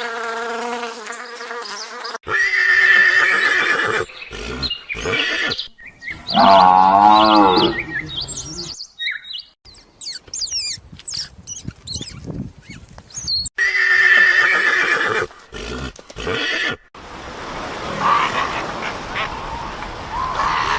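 A string of different animal calls cut one after another, with abrupt breaks between them: pitched, drawn-out calls, one strongly quavering about six seconds in, then a run of high, quick sliding chirps near the middle.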